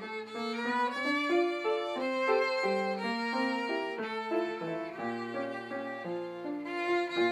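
Background music led by a violin, playing a melody of short, quickly changing notes over held lower notes.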